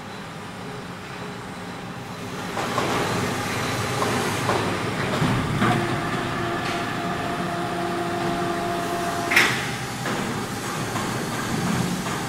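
Overhead crane running with a heavy welding positioner slung from its hooks, a rumbling machine sound. A steady motor whine holds for a few seconds, then a single sharp metallic clank.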